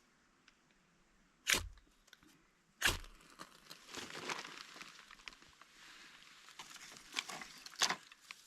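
Dead wood being broken up for firewood: two sharp cracks about a second and a half apart, then a run of crunching and splintering with two more cracks near the end.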